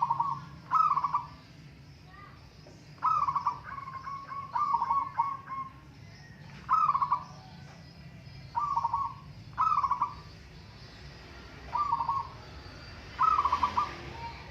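Zebra doves (perkutut) cooing: about ten short, stuttering coo phrases, each under a second, repeated at irregular gaps of one to two seconds.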